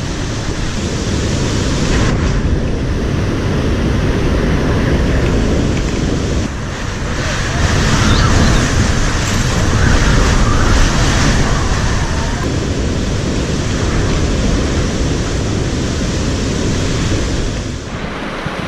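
Cyclone-force wind and heavy rain battering a house: a loud, steady rushing noise that swells and eases, with water coming in through a hole in the roof.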